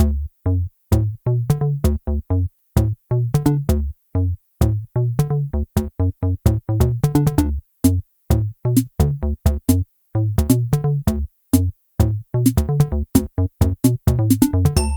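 Electronic background music: a bouncy drum-machine beat with short, clipped bass and synth notes repeating in a steady rhythm.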